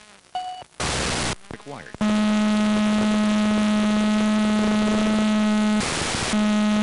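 Steady electrical buzz on the FPV video downlink's audio, starting abruptly about two seconds in, with a short beep and a burst of radio static before it. Near the end the buzz breaks for a moment into a burst of static as the video signal breaks up.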